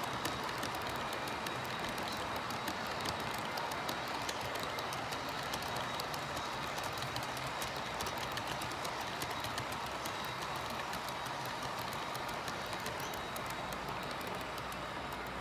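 Model railway wagons rolling past close by on the layout's track: a steady rolling rush dotted with many quick clicks of the wheels over rail joints.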